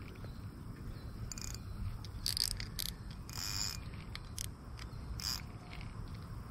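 Spinning reel and fishing line being handled: a handful of short, scattered clicks and scrapes over a low steady rumble.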